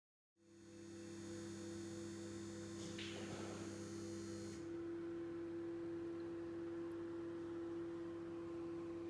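A steady low electrical hum that starts about half a second in, with a faint hiss above it that stops about halfway through.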